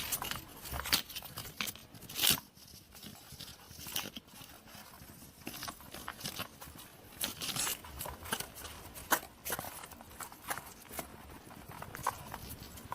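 Hedgehog noises: a string of irregular short clicks, crackles and rustles, the loudest about two seconds in.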